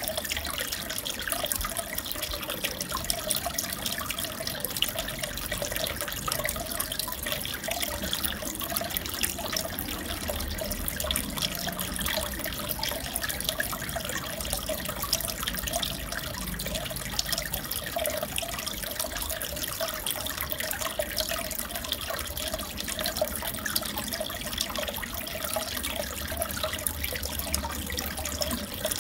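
Steady trickling and bubbling of aquarium water, a constant fine crackle that does not change.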